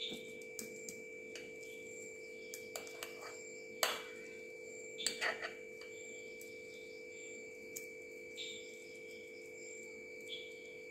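A metal spoon scraping and tapping against a glass bowl while potato masala is scooped out: a few faint, scattered clicks, the loudest about four seconds in and a short cluster just after five seconds. A steady hum runs underneath.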